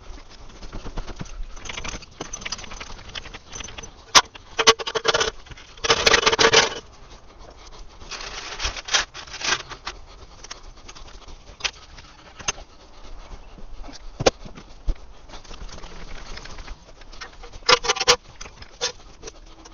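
Irregular metallic clicks, knocks and a scrape from a car being jacked up and set on axle stands, over a steady hiss of rain.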